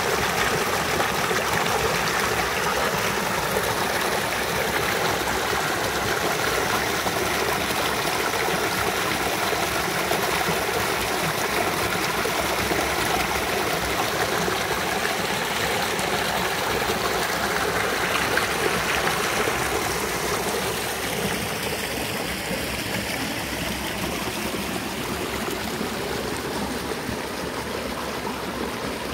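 Creek water rushing and splashing down a small cascade over rock ledges: a steady, even rush that grows a little quieter about twenty seconds in.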